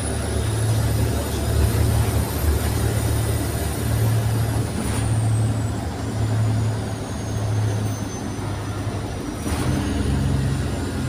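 Diesel engine of a Wright Eclipse SchoolRun bus droning steadily inside the cabin as the bus drives, with a faint high whine that glides up and back down. About ten seconds in, the engine note shifts.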